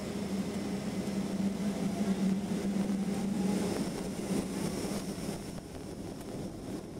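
Cabin noise of a Boeing 757 taxiing at low power, heard from a window seat: a steady hum of the jet engines under a broad hiss, easing slightly later on.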